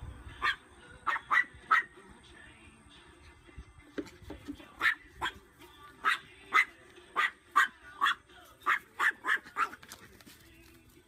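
A dog barking over and over: short, sharp barks in quick runs of two to four, about twenty in all, stopping shortly before the end.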